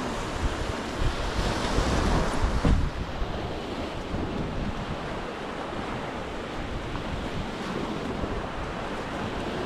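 Sea surf breaking on the beach, with wind buffeting the microphone; the noise swells louder for a moment about two seconds in.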